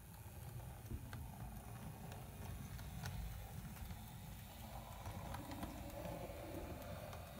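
Model railway locomotive running along the track: a low rumble with irregular sharp clicks as the wheels pass over rail joints and points, and a faint higher hum from about five seconds in.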